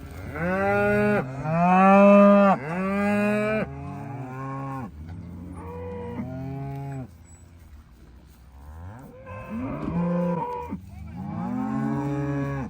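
Several cattle mooing, a series of long, drawn-out calls that rise and fall in pitch, some overlapping, with a lull about two-thirds of the way through.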